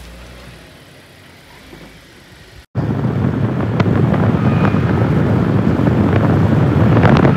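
A quieter low rumble, then after a sudden cut about two and a half seconds in, loud steady wind rushing over the microphone and road noise from filming out of a car window at highway speed.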